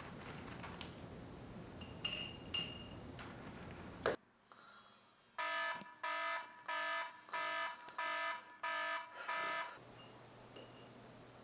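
Electronic alarm clock beeping: seven short, evenly spaced beeps, a little under two a second, starting about five seconds in after faint room hiss.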